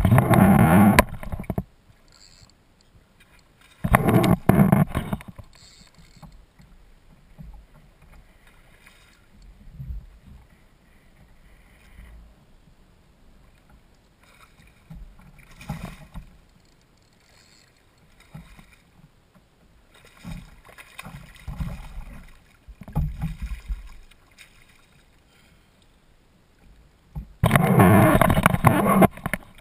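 A hooked redfish splashing and thrashing at the water's surface beside a kayak, in three loud bursts of one to two seconds each, with softer splashes and knocks between. The last loud burst comes as the fish is lifted in a landing net.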